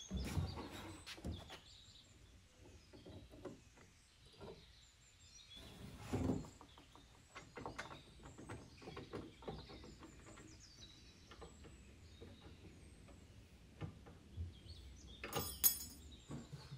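Faint handling sounds of an old wooden dresser: a drawer sliding and wood knocking, with soft clicks of hardware and a louder bump about six seconds in, and a cluster of sharp clicks near the end. Faint bird chirps sound in the background.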